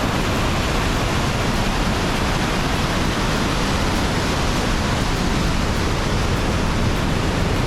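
Avalanche Creek rushing through its narrow rocky gorge: a loud, steady rush of white water.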